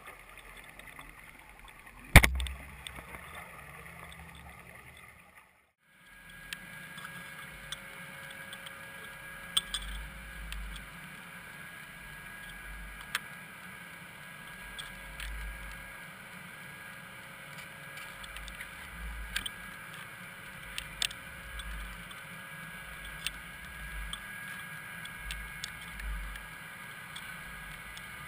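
Muffled underwater audio from a submerged camera: a steady watery hiss with irregular low thuds and scattered clicks, and one loud knock about two seconds in.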